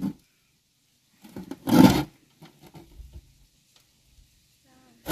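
A heavy clod of earth dropped into a metal wheelbarrow about two seconds in: a short, loud, gritty thud with crumbling dirt. A second thud comes right at the end.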